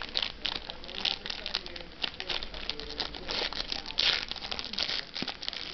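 A trading-card pack wrapper is torn open by hand: a dense run of crinkling crackles, with a louder tearing stretch about three to four seconds in.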